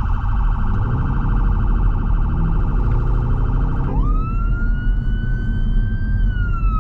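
Emergency response car's electronic siren on a fast yelp, switching about four seconds in to a slow wail that rises, holds and then falls. Under it is the low rumble of the car's engine and road noise in the cabin.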